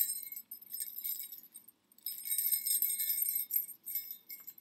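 Small jingle bells on a Christmas stocking jingling as the stocking is handled and shaken. The jingling comes in two longer bouts with a short pause between them, then a few brief jingles near the end.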